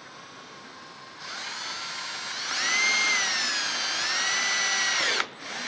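Cordless drill boring a hole through a plastic motorcycle inner fender. The motor whine starts about a second in and gets louder, its pitch sags under load and recovers, then it cuts off suddenly near the end before briefly starting again.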